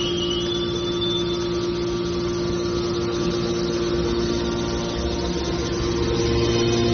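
Hydraulic scrap metal baler running: a steady machine hum from its motor and hydraulic pump, with a faint high whine rising in the first second, growing louder near the end.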